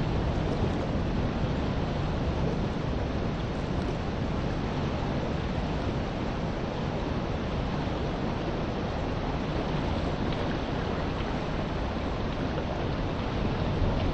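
Steady rush of wind on the microphone mixed with small sea waves washing on the shore.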